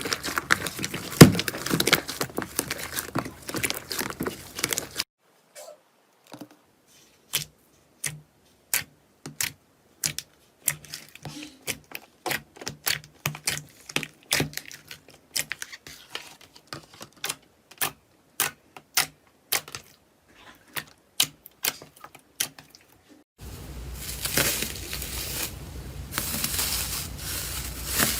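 Slime being squished and stretched: dense crackling for about five seconds, then a long run of separate sharp clicks and pops, then dense crackling again near the end.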